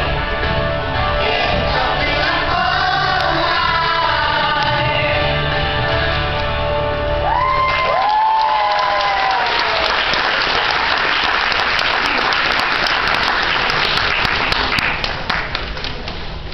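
Children's glee club singing the close of a song with musical accompaniment. The music ends about eight seconds in and the audience breaks into applause, which runs on and begins to fade near the end.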